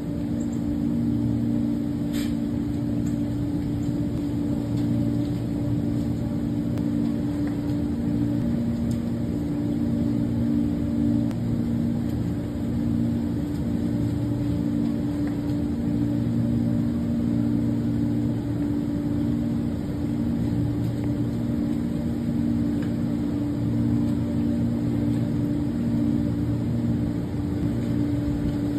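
A steady, low mechanical hum, like a motor or engine running, made of a few held tones, some of which drop out and come back.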